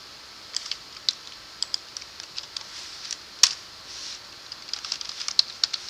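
Typing on a computer keyboard: irregular runs of key clicks, with one louder keystroke about three and a half seconds in.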